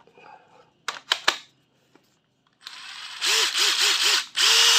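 Makita TD136D 14.4 V brushless cordless impact driver run with no load. A few clicks come about a second in. From about three seconds the motor spins up in four short trigger pulses, its whine rising and falling with each, then holds a longer steady run near the end.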